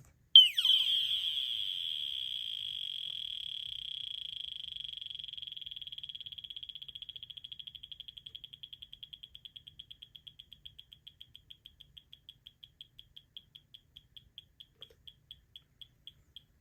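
USI SS-770 smoke alarm's piezo horn sounding its long power-down 'dying sound': a loud, high-pitched tone cuts in about half a second in. It slowly weakens and breaks up into chirps that come more and more slowly and faintly as its remaining charge drains.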